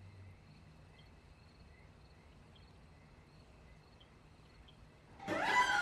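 Faint night insects chirping steadily. Near the end a sudden loud horror music sting of bowed strings cuts in, with several pitches sliding downward.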